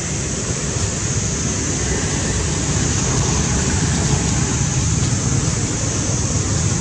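Steady outdoor background noise: a low wind rumble on the microphone under a constant high hiss, with no distinct events.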